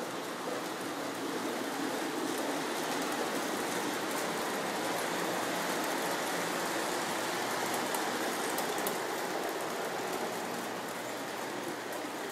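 Lionel O gauge toy train running on three-rail track: a steady rolling noise of wheels and motor, a little louder through the middle.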